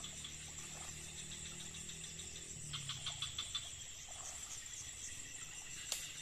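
Steady high-pitched chorus of insects such as crickets, with a run of louder chirps around the middle and one sharp click near the end.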